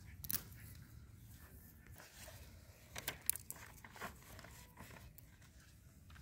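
Fresh groundnut (peanut) pod being cracked and peeled open by hand: a few short, sharp crackles of the shell, one about a third of a second in, then a cluster around three seconds and another near four.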